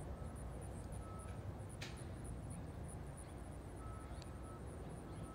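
Boeing 767-300F freighter passing overhead on approach: a faint, steady low rumble from its jet engines. A single sharp click about two seconds in.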